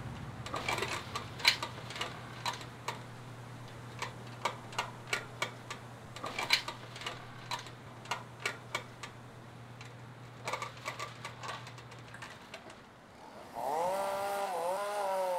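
Footsteps on a hard surface, sharp clicks about twice a second, over a steady low hum that stops near the end. Shortly before the end, pitched tones that slide in pitch come in, music starting.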